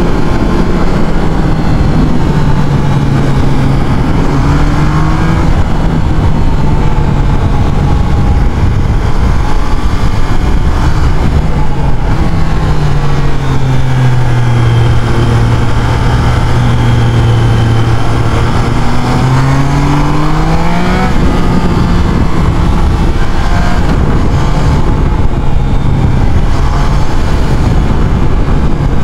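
Triumph Trident 660's inline three-cylinder engine running under way. Its pitch falls and holds low from about twelve to nineteen seconds in, then climbs again as the revs rise.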